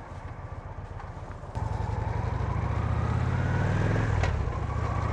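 Motorcycle engine ticking over, then getting louder about a second and a half in as the bike pulls away and accelerates, its pitch climbing; about four seconds in the pitch drops at a gear change and starts climbing again.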